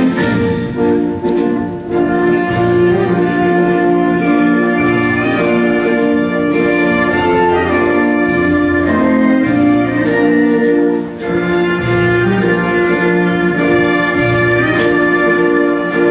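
Recorded orchestral music with long held chords, typical of a national anthem played for the flag raising. The sound dips briefly a little after eleven seconds.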